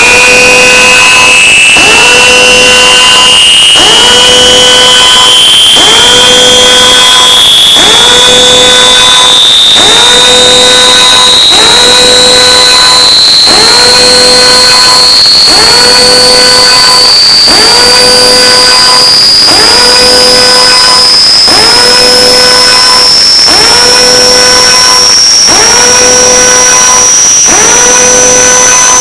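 Loud, high-pitched electronic siren tone that climbs slowly and steadily in pitch, over a lower pulsing beep that repeats about every two seconds.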